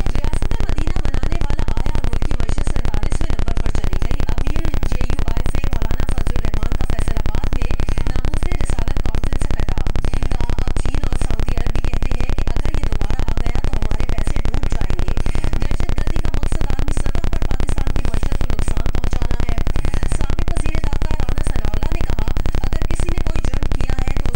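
Loud, steady low buzzing noise with a very fast, even pulse, holding at one level throughout, with faint muffled sound beneath it.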